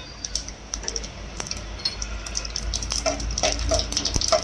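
Mustard seeds crackling and popping in hot oil in an aluminium pot, a tempering of mustard and cumin for pickle. A steel spoon stirs and scrapes the pot in the second half, where the clicks come thicker.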